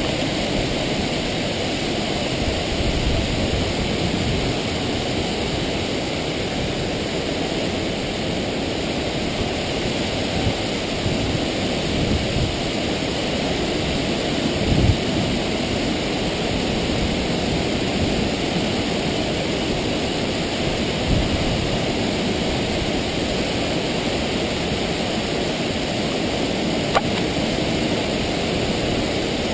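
An 85-metre waterfall plunging into its pool, giving a steady, even rushing noise. A couple of brief low bumps sound about halfway through and again a little later.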